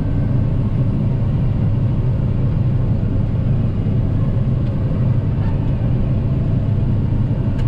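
Combine harvester running steadily under load, heard from inside the cab: a constant low engine and machinery drone while it cuts wheat with the unloading auger running.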